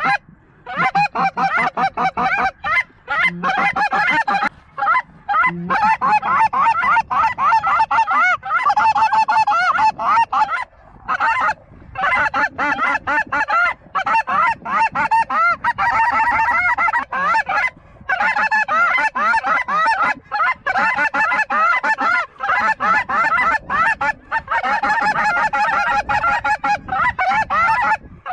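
A dense chorus of snow geese calling, many short high honks overlapping without a break.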